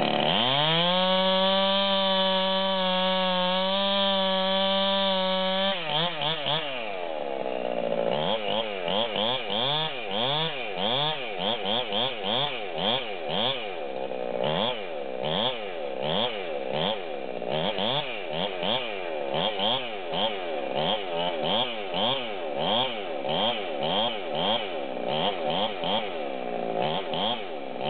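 Husqvarna 390 XP two-stroke chainsaw bucking a felled log. It runs at steady high revs for about six seconds, then its revs rise and fall over and over, about twice a second, as the chain works through the wood.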